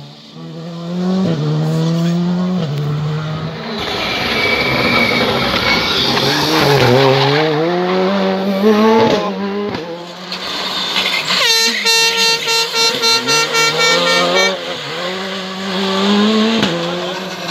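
R5 rally cars, with 1.6-litre turbocharged four-cylinder engines, driven hard past the microphone: the engine note repeatedly climbs and drops as they rev through the gears and brake for corners. Near the middle a steady high note is held for about three seconds.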